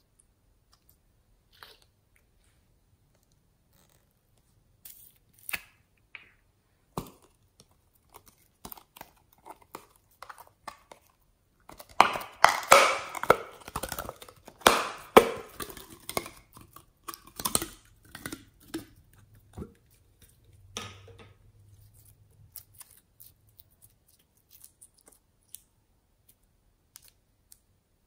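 Clear slime being stretched, folded and squeezed by hand, giving sticky pops and crackles. Scattered at first, they thicken into a dense, louder run of crackling for several seconds around the middle, then thin out again.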